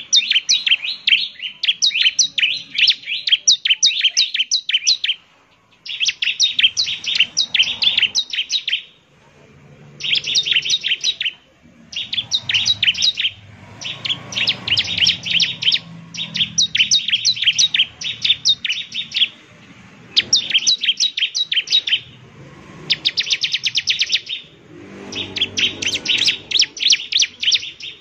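Bar-winged prinia (ciblek) singing: fast, sharp chirps strung into repeated phrases of one to three seconds, with short pauses between.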